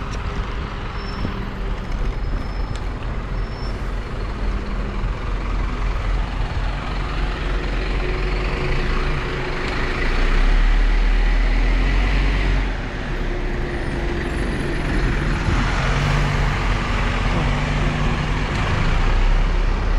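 Road traffic with a heavy vehicle's engine running, a steady low rumble with hum-like tones. The rumble swells about ten seconds in and again near the end.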